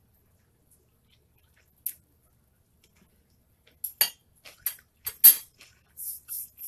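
A metal spoon clinking and scraping against a plate while food is scooped up. One light clink comes about two seconds in, then a quick run of sharper clinks around four to five seconds in, and soft hissy scraping near the end.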